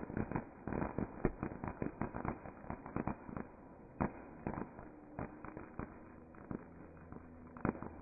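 Fireworks crackling: a dense run of rapid sharp pops that thins out after about three and a half seconds into scattered single pops.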